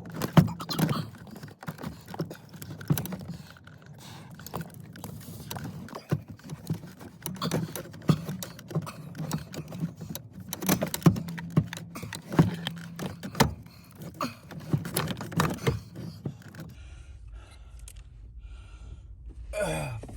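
Irregular clicks, knocks and clatter of a steering wheel and its parts being worked back onto the steering column by hand, stopping about three seconds before the end.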